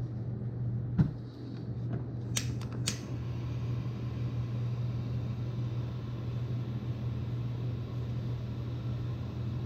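Steady low mechanical hum, with one sharp click about a second in and two lighter clicks near three seconds.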